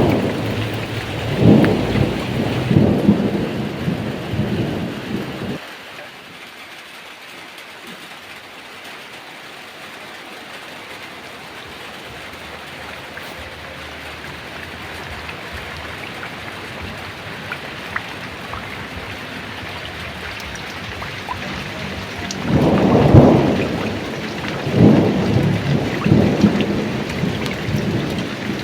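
Heavy rain falling steadily, with rolling rumbles of thunder. The thunder cuts off abruptly about five and a half seconds in, leaving only the rain. It rolls in again about 22 seconds in and rumbles on to the end.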